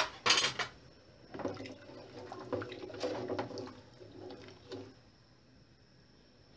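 A spoon stirring watery vegetable broth in an aluminium cooking pot, the liquid sloshing and the spoon scraping and knocking against the pot. A sharp knock comes right at the start, and the stirring stops about five seconds in.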